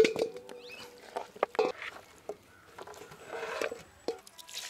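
Raw chicken pieces dropping and slapping into a stainless-steel bowl as they are tipped off a steel plate, with several sharp metal knocks that ring briefly, the loudest right at the start.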